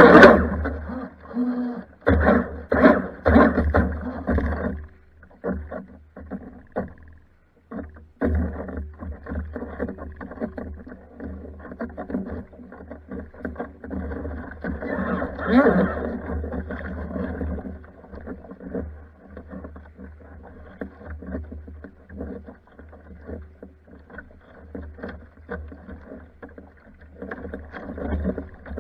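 Water sloshing and slapping against the hull of a Pro Boat Blackjack 42 RC catamaran in the shallows, picked up muffled by a camera on its deck. The splashing is loudest in the first few seconds, then goes on more quietly in irregular bursts.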